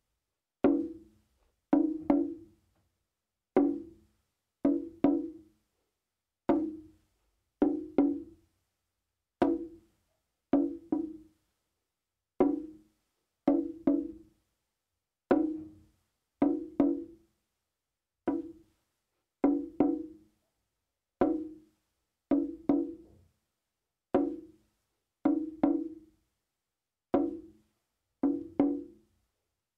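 Slow percussion music: a pitched hand drum or wood block struck in a steady rhythm of single and double beats, about one group every one and a half seconds. Each beat dies away quickly.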